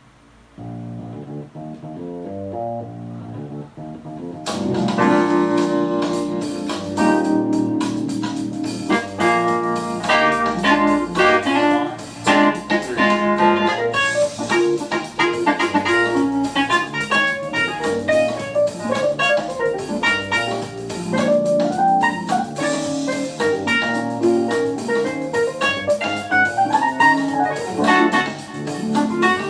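Instrumental jazz music with keyboards and guitar: a soft, sparse opening of low notes, then the full band comes in loudly about four and a half seconds in and keeps playing.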